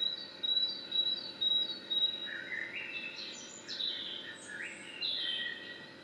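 Songbird calls and song: four sharp high notes about half a second apart over a thin steady high tone, then a run of varied phrases that step up and down in pitch.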